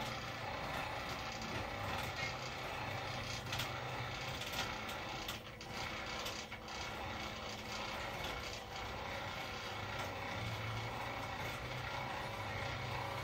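Wheelchair gear motor running off 12 volts, driving a Harbor Freight bike lift's pulleys and rope to lower a hanging bicycle: a steady mechanical hum and whir, with a few clicks of the pulley mechanism about four to five seconds in.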